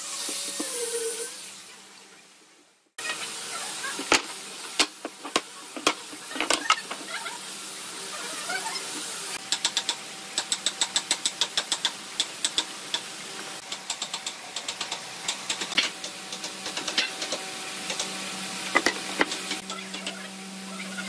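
Scattered knocks and clicks of tool work, with a run of rapid, even clicks, about four or five a second, for a few seconds in the middle. The sound fades out about two seconds in and returns a second later, and a steady hum sets in near the end.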